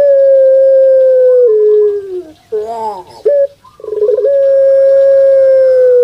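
Puter pelung dove (Streptopelia risoria) giving its long, drawn-out call. Twice it holds a loud, long steady note that steps down and slides lower at the end, with a short wavering note between the two.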